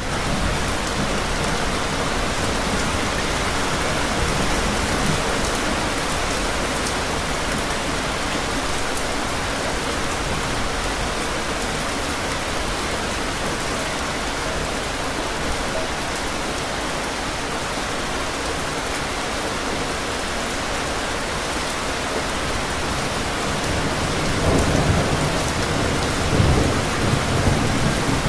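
Steady rain falling, an even hiss. Thunder rumbles a few seconds before the end.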